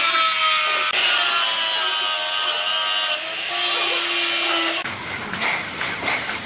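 Angle grinder cutting through the wall of a metal barrel: a loud, steady hiss with a whining motor tone. About five seconds in it gives way to a quieter, rougher sound.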